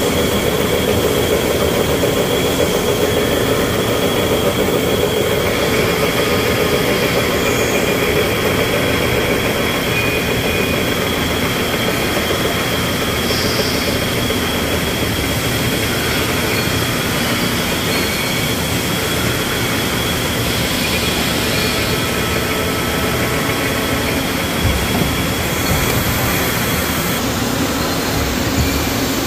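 CNC machining center face-milling a forged steel front-axle I-beam under flood coolant: a steady cutting and spraying noise with a thin, high steady whine. Near the end the whine stops as the cutter lifts clear of the milled pad.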